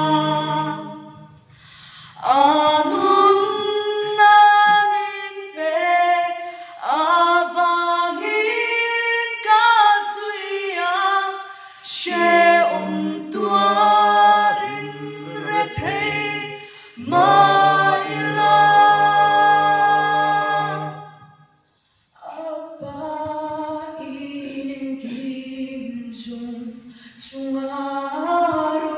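Mixed group of men and women singing a cappella in harmony, in sung phrases with short breaks between them. After a brief pause about three quarters of the way through, the singing goes on more softly.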